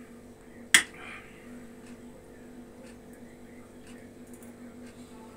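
Metal spoon knocking once against a ceramic soup bowl as broth is scooped: a single sharp click about a second in, over a faint steady hum.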